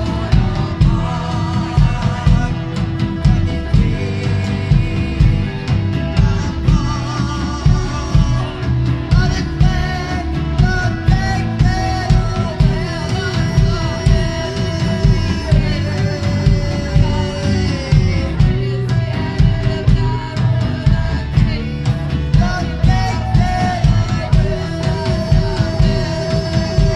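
Live dark-wave rock band playing: a singer's voice carries the melody over strummed acoustic rhythm guitar, electric bass and a steady drum-kit beat.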